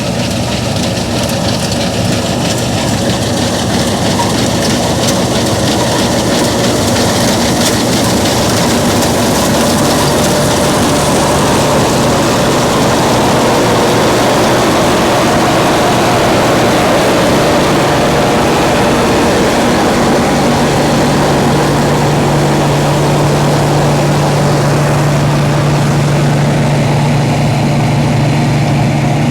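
An old combine harvester running steadily while harvesting barley: engine and threshing machinery going together. A low hum strengthens about two-thirds of the way in.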